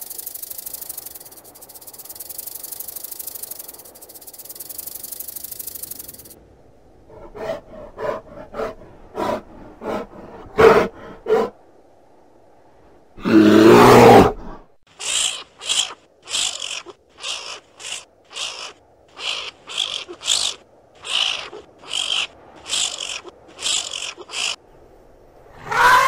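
A string of separate wild animal sounds. It opens with a cobra's steady hiss for about six seconds, followed by a run of short calls. About thirteen seconds in comes one loud, long growl from a brown bear, then about a dozen short high-pitched calls at an even pace, and a falling call begins at the very end.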